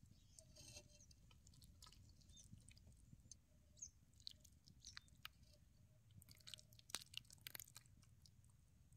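Faint, scattered small clicks and taps as drumstick curry is ladled onto crumbled millet bhakri in a steel plate, with the sharpest cluster about seven seconds in.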